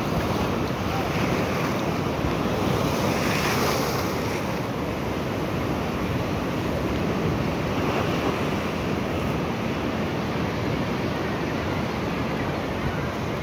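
Ocean surf washing across a flat rock shelf, a steady rushing and hissing of water that swells louder about three to four seconds in, with wind buffeting the microphone.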